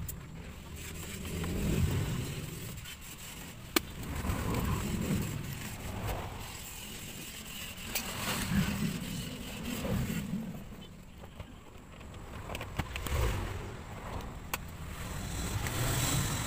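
Plastic dashboard trim being handled and fitted inside a car, giving a few sharp clicks, over a low, uneven rumble.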